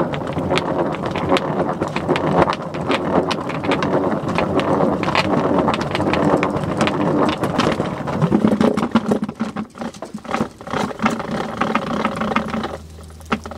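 Hand-cranked plastic salad spinner being turned fast: a steady whir from the crank gears and spinning basket, with lots of small clicks and rattles, spinning washed salad greens dry. It stops about a second before the end.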